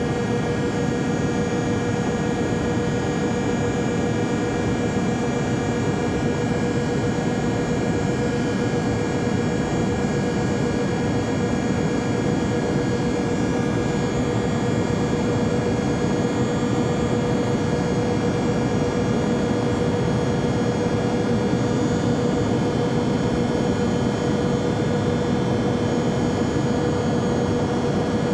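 Steady drone of a jet airliner in flight as heard in the cabin: a dense rushing noise with a constant whine-like tone and fainter steady tones above it, unchanging throughout.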